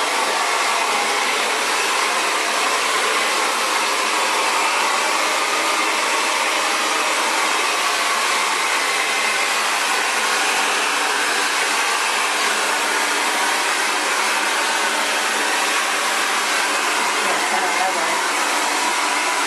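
Xtava Allure 2200-watt ionic ceramic hair dryer running steadily, a constant rushing blow of air with a faint fan whine.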